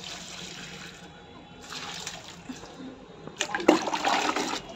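Water poured from a plastic mug onto the soil of a potted plant, then, near the end, the mug dipped into a plastic bucket of water and scooped full with a louder splashing.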